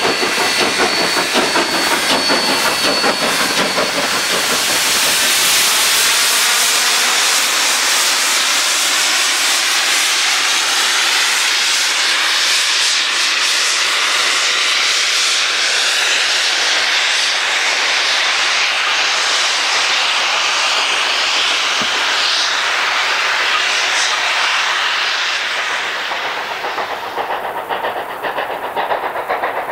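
Narrow-gauge steam locomotive 488, a K-36 Mikado, working past close by: rhythmic exhaust chuffs over a heavy, steady steam hiss and the rumble of its wheels on the rails. About four seconds before the end it turns fainter and duller.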